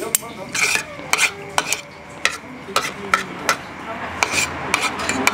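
Metal spoon and fork scraping and clinking on a ceramic plate, gathering up the last of the fried rice: a quick string of short, sharp clinks and scrapes, well over a dozen.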